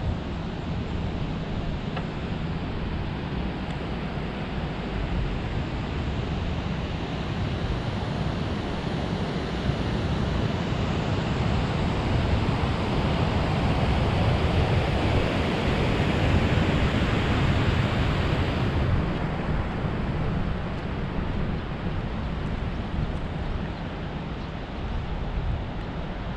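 Wind rushing over a head-mounted action camera's microphone while cycling, a steady low buffeting. A brighter hiss swells partway through and cuts off suddenly about two-thirds of the way in.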